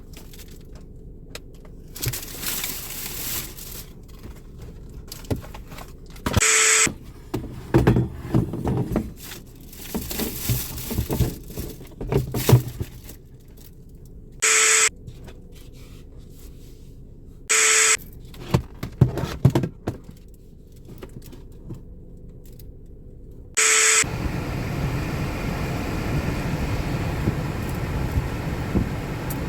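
Rustling and clattering handling noises, broken by four short beeps, then from about 24 s a steady car cabin noise.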